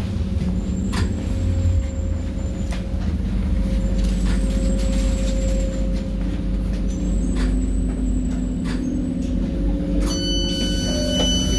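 Tyne and Wear Metrocar running, heard from inside the car: a steady low rumble and motor hum, with occasional clicks of the wheels over rail joints and faint high wheel squeal. About ten seconds in, a steady high electronic tone starts abruptly.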